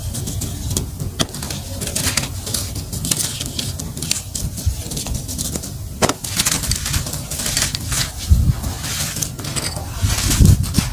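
Dry, grey, gritty clumps crushed and crumbling in bare hands: a dense crackle of small crunches as grains pour off, with a couple of heavier dull thumps in the second half.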